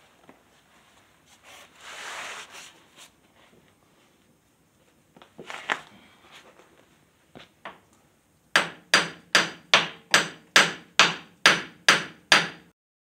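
Hammer striking the steel pivot pin of a Case 580D backhoe's swing cylinder to drive it out: about ten rapid, evenly spaced ringing metal blows in the second half, after some scattered knocks and handling clatter.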